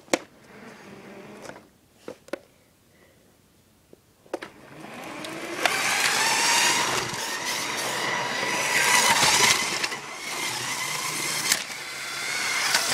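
Motorised Lego toy train running along its plastic track. It starts about four seconds in, after a few sharp plastic clicks. Its whir builds over a couple of seconds, then holds steady and loud.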